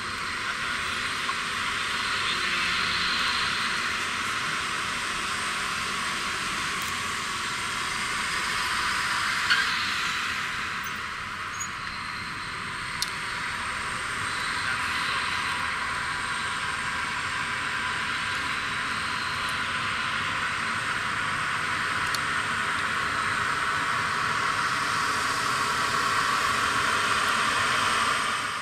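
Steady high-pitched jet hiss and whine from a parked Antonov An-124-100 at the stand before pushback, with two faint clicks in the middle.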